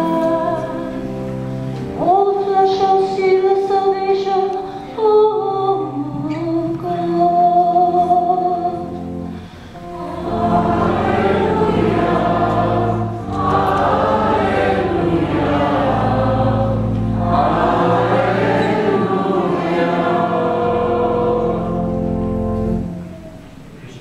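Church choir singing with steady low accompaniment: a single sung line with long held notes first, then fuller singing of many voices from about ten seconds in, dying away just before the end.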